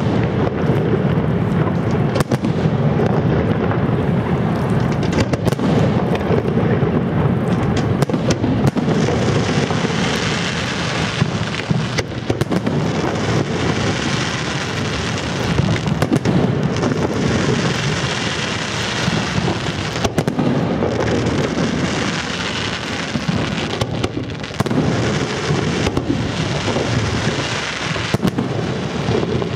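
Fireworks display going off in a continuous barrage: many bangs from bursting shells overlapping, with crackling between them.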